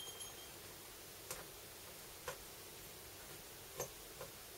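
Light clicks and taps of small laptop parts being handled: a short metallic ping at the start, then four more sharp clicks spread over the next few seconds.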